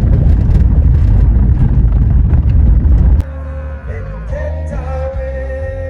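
Loud, low rumbling noise for about three seconds, then an abrupt cut to pop music with steady held notes and a melody.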